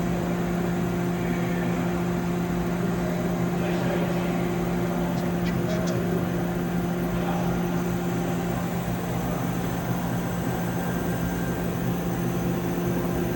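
Steady machine hum with a low drone, and a few faint ticks about five to six seconds in.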